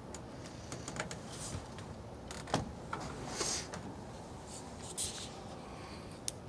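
Scattered sharp clicks and short rustles from a mule deer buck feeding close by, the loudest click about two and a half seconds in.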